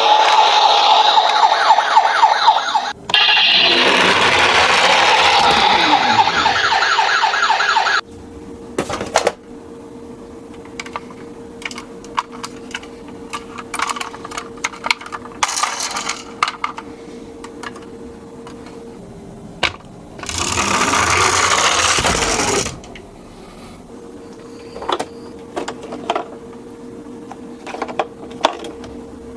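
Toy ambulance's electronic siren wailing in a fast warble, with a brief break about three seconds in. It cuts off about eight seconds in. After that come small clicks and rattles over a faint steady hum, and a loud rush of noise for about two seconds near the end.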